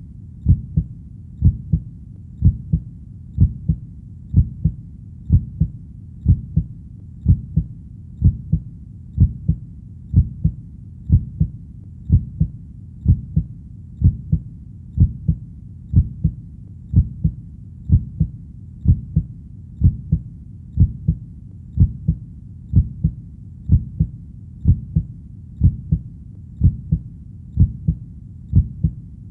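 Heartbeat: steady paired lub-dub thumps, low and dull, at about one beat a second.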